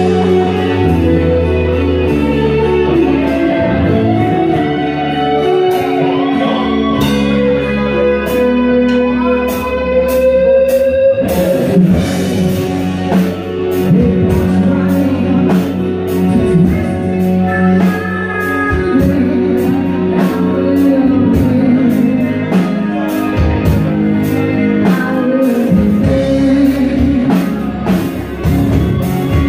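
Live band music: a guitar plays a melodic lead line with bent and sliding notes over bass and drums. The drumming becomes fuller and more driving about eleven seconds in.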